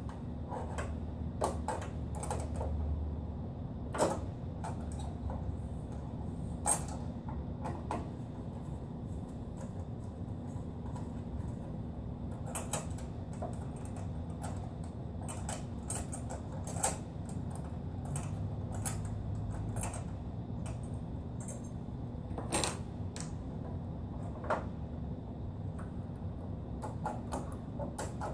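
Scattered clicks and light metallic taps of hand screwdrivers and screws working on the sheet-metal chassis of an HP Designjet Z3100 large-format printer being dismantled, over a steady low hum.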